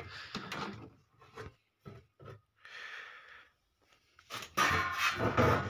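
Sheet-metal top cover of a PA amplifier being lifted and slid off its chassis: scattered light clicks and knocks, a short scraping rub in the middle, and louder scraping handling noise near the end.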